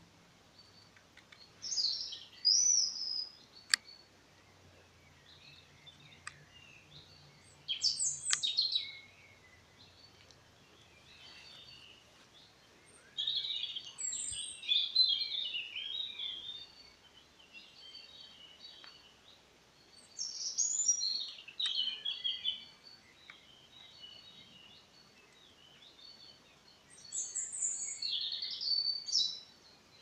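Songbirds singing: five warbling song phrases of one to three seconds each, coming about every six seconds. A faint low drone sits under the first part.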